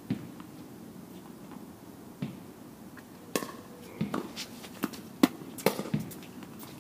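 Tennis balls being struck by rackets and bouncing, heard as a string of sharp, irregularly spaced knocks. They come more often after about three seconds, and the loudest is a little past five seconds in.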